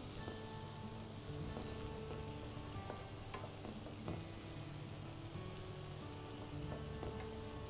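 Chicken in a cream and Parmesan sauce sizzling steadily in a frying pan, with a few light clicks of a utensil stirring it.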